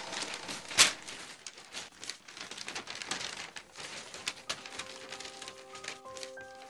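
Paper crinkling and rustling in irregular crackles, with one sharp click about a second in. Faint held musical notes come in near the end.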